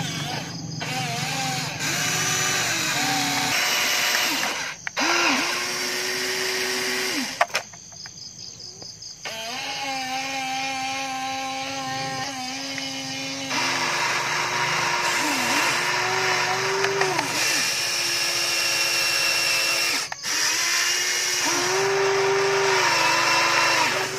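Electric motors of a Huina remote-control excavator whining as the boom, arm and bucket move, the pitch stepping and gliding up and down as each motor starts and stops, with a few short breaks.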